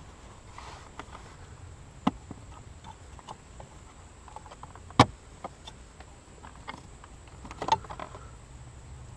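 Scattered clicks and knocks from hands working on car interior parts, with the loudest sharp knock about five seconds in and a cluster of clicks near the end, over a low steady hum.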